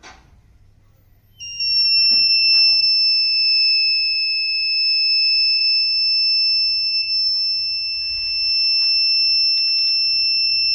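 Buzzer of a homemade fire alarm circuit switching on about a second and a half in and sounding one steady, loud, high-pitched tone: the alarm has been set off. A few clicks come just before and just after the tone starts.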